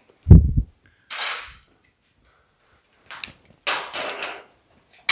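A hand-shaped sheet-metal fender panel being handled against the car's buck during a test fit: a heavy thump just after the start, then short spells of scraping and rustling as the metal is shifted against the buck.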